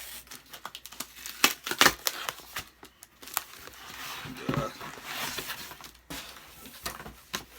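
A cardboard shipping box being opened by hand: tape tearing and packing material crinkling, with irregular clicks and knocks as it is handled.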